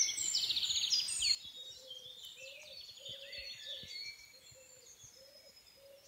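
Dawn chorus of songbirds in a spring forest: several birds trilling and whistling at once. About a second and a half in it drops quieter, and a low, soft call repeats a couple of times a second beneath the higher songs.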